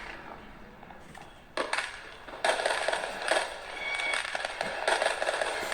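Fireworks crackling and popping. The sound begins in bursts about a second and a half in, then turns into a denser, louder run of crackle.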